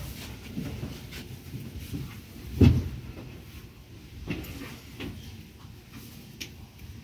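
Low rumble inside a metro train car, with scattered light knocks and one loud, dull thump a little under three seconds in.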